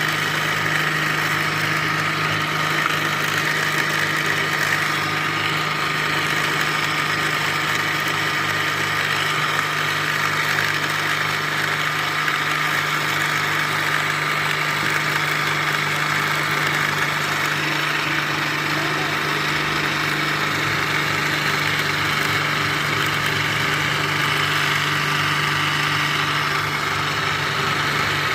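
Modified motorcycle starter motor, run off a 20-volt cordless drill battery, spinning an onion slicer at a constant speed: a steady hum with a higher whine above it.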